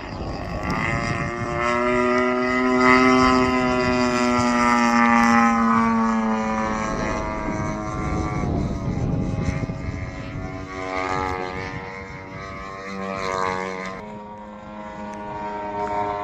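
Radio-controlled Sbach 342 aerobatic model plane flying, its propeller engine giving a steady high-pitched drone. It is loudest a few seconds in, its pitch drops as it passes away, then it drones on quieter with the pitch shifting up and down as the throttle changes.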